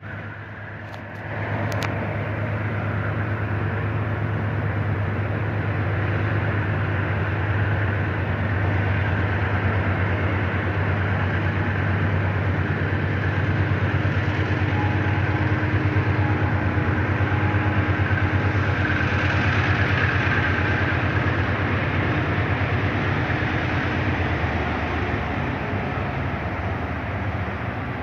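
Train passing: a steady, loud rumble that comes up about a second and a half in, easing slightly near the end.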